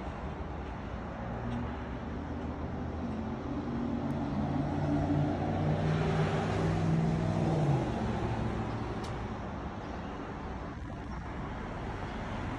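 A pickup truck drives past, its engine hum swelling to a peak midway and then fading, over a steady background of road traffic.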